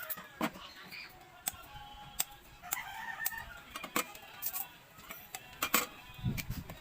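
Sugarcane being bitten and chewed: irregular sharp crunching cracks as the fibrous stalk splits. A rooster crows in the background about halfway through.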